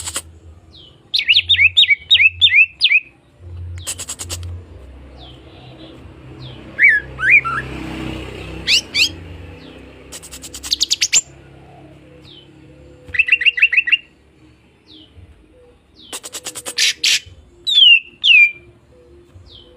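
Cucak ijo (green leafbird) singing in its aggressive 'fighter' style: short bursts of rapid, sharply falling whistled notes alternating with harsh, fast rattling chatter phrases, with gaps of a second or two between phrases.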